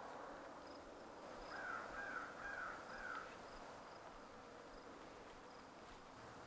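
A bird calls four times in quick succession about a second and a half in, over quiet outdoor background with faint insect buzzing.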